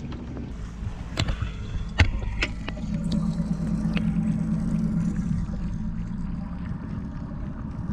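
A boat's livewell pump runs with a steady low hum, heard through the water of the livewell. It follows a few sharp knocks in the first couple of seconds.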